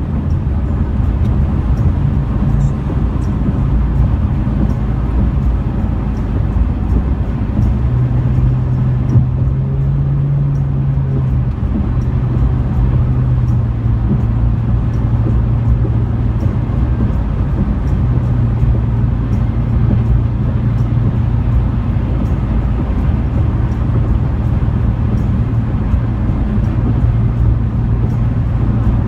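Car cabin noise while driving at highway speed: a steady low rumble of tyres and engine. The engine's low hum rises a little about a quarter of the way in and settles back soon after.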